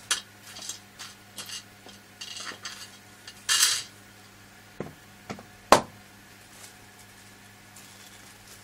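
Small metal screws clinking and rattling as they are picked up and handled, then fitted to mount a hard drive in a computer case. A short rustling burst comes near the middle, followed by a few sharp clicks, the last one the loudest, then quiet apart from a faint hum.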